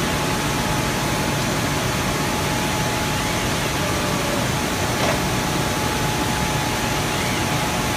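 Steady industrial machinery noise with a constant high-pitched hum and a low drone, unchanged throughout; a single short knock sounds about five seconds in.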